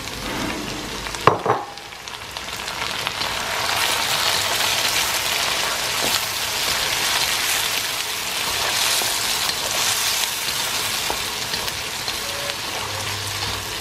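Diced tomatoes sizzling in hot oil as they hit a wok of fried chicken and onions, stirred and scraped with a wooden spatula. There is a single sharp knock about a second in, and the sizzling swells after about two seconds, then holds steady.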